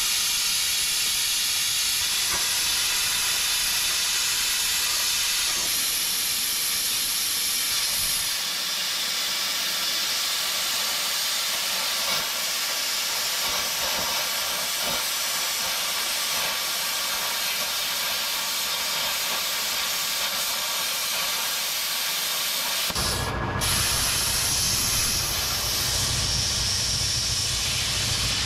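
Plasma cutter cutting steel: a loud, steady hiss of the torch's air and arc that starts abruptly. A deeper rumble joins about 23 seconds in.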